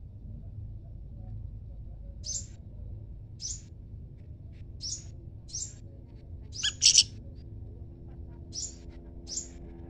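Small wild songbirds, the siri-siri raja and the sepah raja, calling back and forth with short, high chirps, about eight in all. The loudest pair of chirps comes around two thirds of the way in, over a faint low rumble.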